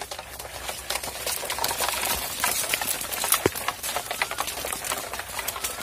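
Dry leaf litter, palm fronds and twigs crackling and rustling in quick, irregular crackles, as when someone moves through the undergrowth.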